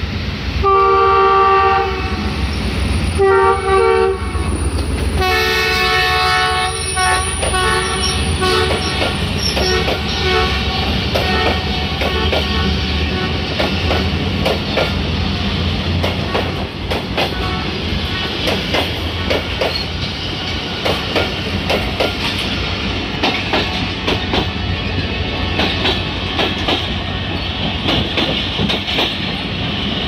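ZCU-30 diesel locomotive's multi-tone horn sounding three blasts, two short and then a long one of about four seconds. Then the express train passes at speed: a steady rumble from the locomotive and coaches, with rapid clickety-clack of wheels over rail joints and a little wheel squeal.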